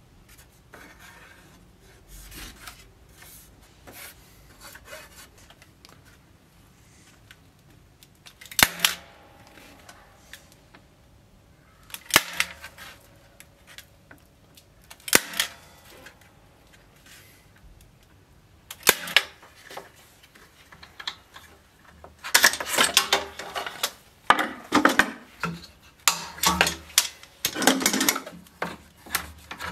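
Workbench handling noises: a few sharp single knocks several seconds apart, then a long run of quick clattering and knocking over the last seven seconds or so, as tools and wooden pieces are picked up and set down.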